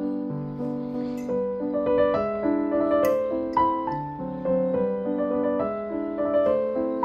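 Gentle piano music: a slow melody over sustained chords, with a couple of faint clicks about one and three seconds in.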